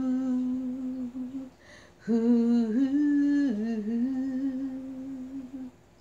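A woman humming the melody of a gospel song without accompaniment. A long held note ends about a second and a half in, followed by a short breath. A second phrase then rises and falls in pitch and fades out shortly before the end.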